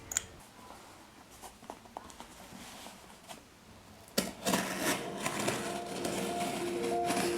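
Small clicks, taps and rustling in a quiet room: a sharp click right at the start, scattered faint ticks, then from about four seconds in a louder run of rustling and tapping, with soft background music coming in near the end.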